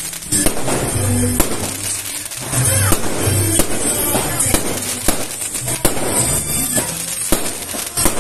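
Aerial fireworks bursting overhead, with repeated sharp bangs and crackling, over music playing in the background.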